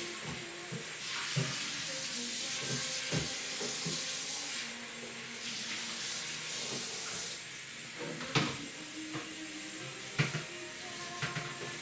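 Kitchen tap running into the sink during washing-up, with dishes and pans knocking and clinking now and then; the sharpest knocks come a little past eight seconds and about ten seconds in.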